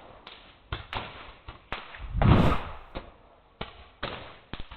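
A series of about nine sharp bangs and knocks at uneven intervals, with one heavier, deeper thud a little after two seconds in.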